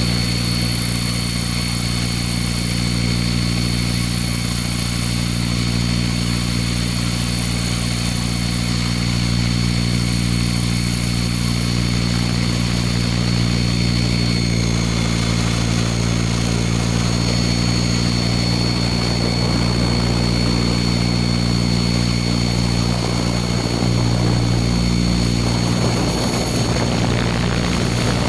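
Scale Airwolf RC model helicopter heard from a camera on its own fuselage: motor and main rotor running with a steady high whine over a low drone as it lifts off and flies low. Wind rushes over the microphone near the end as it banks.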